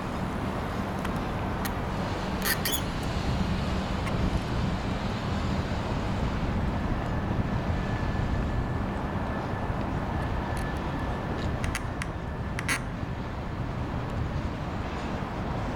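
Steady low rumble of a Union Pacific freight train rolling past far below. A few sharp clicks come near the start and near the end, and a faint thin high tone is held for several seconds in the middle.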